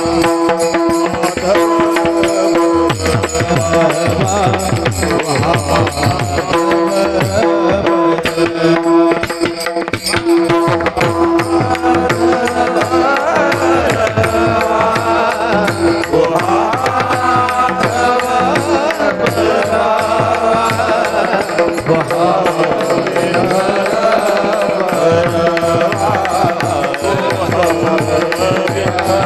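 Marathi devotional bhajan music: a hand drum beats a steady rhythm under a long held note, with a winding melody over it that grows busier about halfway through.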